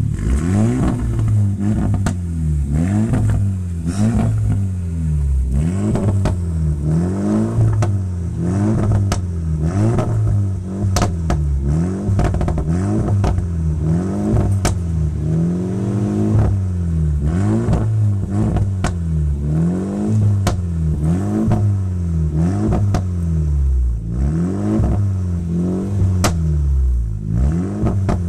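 Renault Mégane RS's 1.8-litre turbo four-cylinder revved in free-rev blips, one after another, about one every second and a quarter, each rising and falling in pitch. Sharp crackles and pops come from the central exhaust between the revs, loudest three times.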